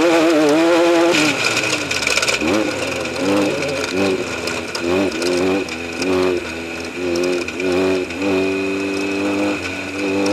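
Race vehicle engine held at a steady, wavering note for about a second. After that comes a string of short pitched sounds that rise and fall, about one a second, over a steady high whine.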